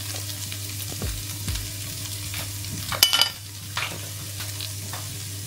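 Curry-coated chickpeas sizzling in oil in a non-stick frying pan while a silicone spatula stirs them, with a sharp clack about three seconds in.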